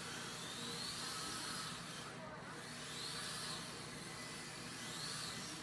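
Mini-Z MRD RC drift car's small electric motor whining faintly, rising and falling in pitch three times with the throttle, over a steady hiss of tyres sliding on the track tiles.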